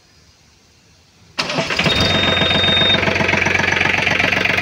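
Mahindra OJA 2127 compact tractor's diesel engine started with its push-button starter. It is quiet for about a second and a half, then cranks briefly, catches suddenly and settles into a steady idle. A high steady beep sounds for about a second just after it catches.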